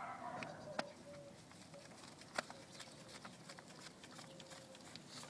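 Scattered light clicks and taps, one sharper about two and a half seconds in, from a screwdriver working the screws out of a plastic power door lock actuator housing. Faint bird calls in the background.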